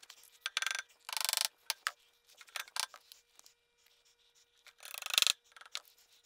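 Hand tools and small parts being handled on a work mat: scattered clicks, rubs and scrapes, with a longer scrape about a second in and a louder scrape and knock about five seconds in.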